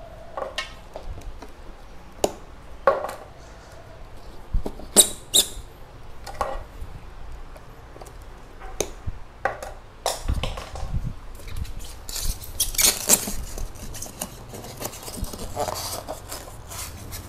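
Hands working potted orchid plants into styrofoam packing and pinning them in place: scattered short clicks and squeaky rubbing, with a denser stretch of rustling about twelve seconds in.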